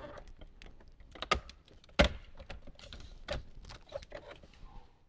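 Jeep Gladiator's plastic dash trim bezel being pulled off by hand, its retaining clips letting go in a series of clicks and snaps. The sharpest snaps come about one and a half seconds in, two seconds in, and a little after three seconds.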